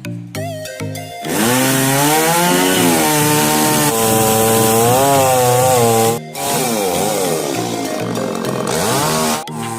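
Background music stops about a second in, and a two-stroke chainsaw runs at high revs, its pitch rising and falling as it cuts. The engine briefly drops off near the middle and again near the end.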